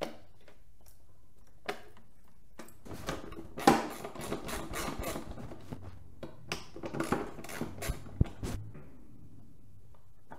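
Hand tools and metal hardware clinking and rattling while a motorcycle Tour-Pak luggage box is taken apart, with a few scattered clicks, one sharp knock a little after three seconds in, and a busy stretch of clatter through the middle.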